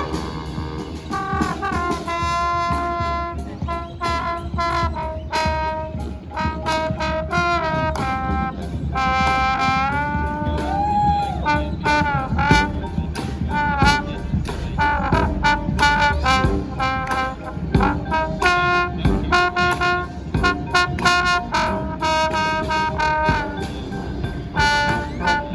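Brass band playing live: trumpets and trombones carry the tune over drums, with notes bent and slid in pitch.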